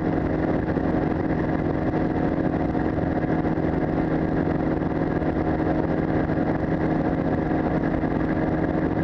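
Powered parachute's engine and propeller running steadily at cruise power in flight, heard close up from the cart.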